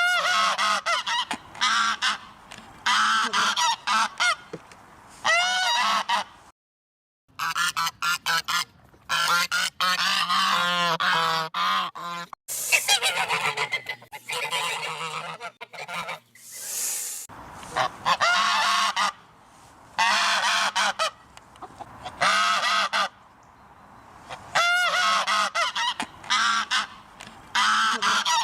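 Geese honking in repeated loud calls, several birds calling over one another. There is a short break about seven seconds in, then a run of rapid, overlapping honks.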